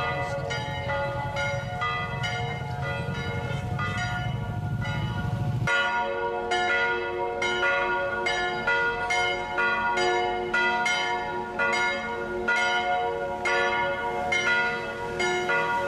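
Church bells ringing from a stone bell tower, struck about twice a second, each note ringing on under the next. A low rumble lies under the first six seconds and cuts off suddenly.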